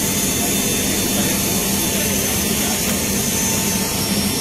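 Jet turbine noise of a parked military transport aircraft, heard inside its cargo hold: a steady loud rushing noise with a low hum and a thin, high steady whine.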